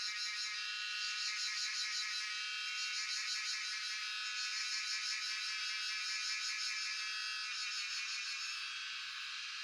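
Cicadas calling in chorus: a dense, high buzzing drone with a fine pulsing flutter, easing off slightly near the end.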